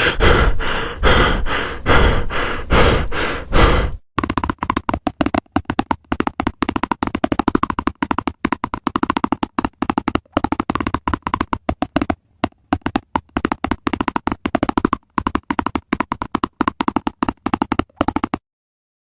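Two percussive sound effects in a row: first about nine heavy knocks, roughly two a second; then a fast run of sharp clicks or taps with short breaks, which stops abruptly.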